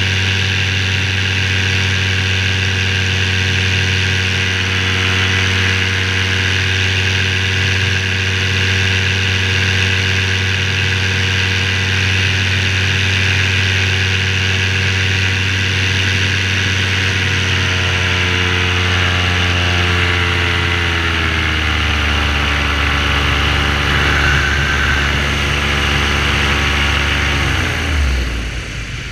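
Parajet V3 paramotor's two-stroke engine and propeller running at a steady speed, then slowing over about ten seconds with the pitch falling, until the engine sound drops away near the end.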